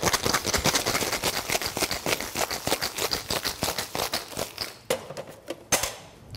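Ice cubes and a large chunk of ice rattling hard inside a metal cocktail shaker being shaken vigorously, a rapid clatter that thins out after about five seconds; a single knock near the end as the shaker is set down on the bar. The shaking chills and aerates a daiquiri.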